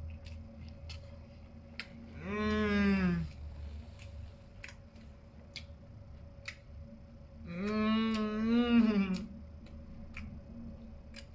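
A man humming "mmm" with pleasure through a closed mouth while eating, twice: a one-second hum about two seconds in and a longer, wavering one near the end, each falling off in pitch. Faint scattered clicks of chewing sound between them.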